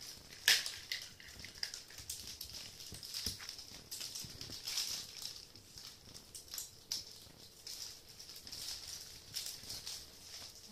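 Two kittens scrabbling and pouncing on a cloth over a wooden floor: a busy run of light scratches, taps and rustles from their paws and claws, with one sharper tap about half a second in.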